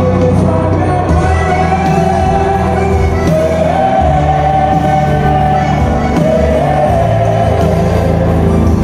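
Live band music with several voices singing a melody together over a steady bass line.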